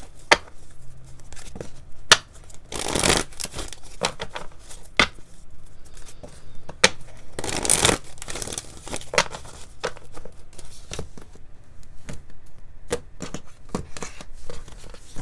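A deck of tarot cards shuffled by hand: a run of sharp card snaps, with two longer rustling riffles about three and eight seconds in.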